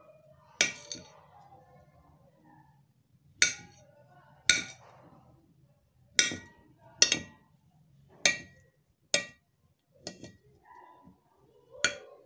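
A table knife slicing fruit on a ceramic plate, its blade clinking against the plate about nine times at irregular intervals.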